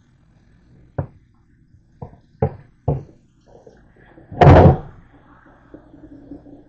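Frying pan knocking against a stainless steel sink while being handled for rinsing: four sharp knocks over the first three seconds, then one much louder bang about four and a half seconds in.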